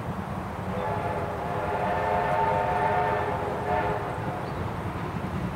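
Steam whistle of the Victorian Railways A2-class locomotive 986, blown once for about three seconds as the engine approaches, with a steady pitched tone starting about a second in and cutting off near the end.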